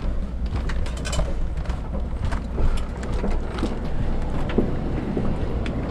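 Footsteps and light knocks from handling a tripod-mounted camera while walking through an aircraft cabin, over a steady low hum.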